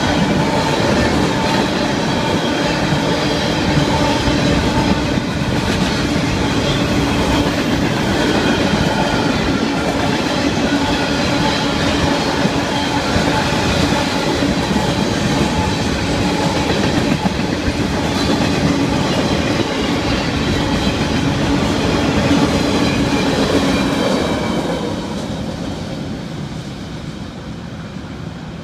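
Freight train of tank cars and boxcars rolling past at close range, its wheels running steadily on the rails. About 24 seconds in the sound fades as the end of the train moves away.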